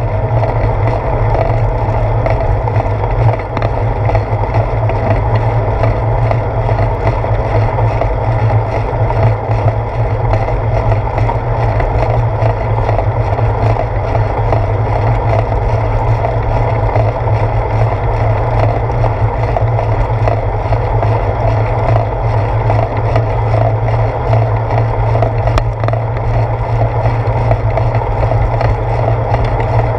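Steady rolling noise of a bicycle ride picked up by a GoPro mounted on the seat post: wind rush over the camera and tyre hum on asphalt, carried through the mount as a constant low rumble.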